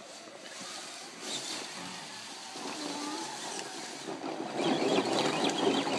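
Radio-controlled scale rock crawler's electric motor and geared drivetrain whirring as it crawls up a loose dirt slope. It gets louder about two-thirds of the way through.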